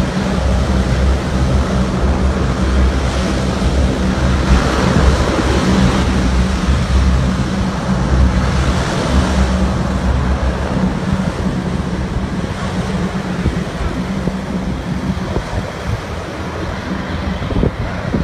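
Four-engine turboprop military transport of the C-130 Hercules type with engines and propellers running. It makes a steady deep drone with a propeller hum over a broad roar, easing off gradually in the second half.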